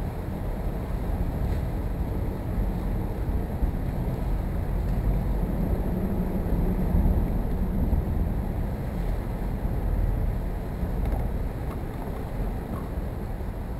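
Wind buffeting the camera's microphone outdoors on open water, a steady low rumble that swells and eases.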